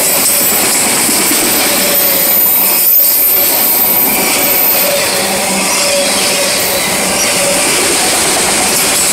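A freight train of enclosed autorack car-carrier wagons rolling past close by: a loud, steady rush and rattle of steel wheels on rail and car bodies, with a thin high whine that fades out about halfway through.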